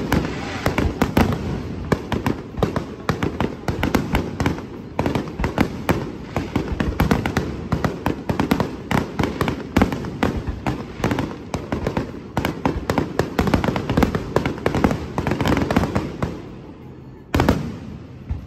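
Fireworks barrage: a rapid, dense run of bangs and crackling that thins out about sixteen seconds in, with one last loud bang near the end, closing the display.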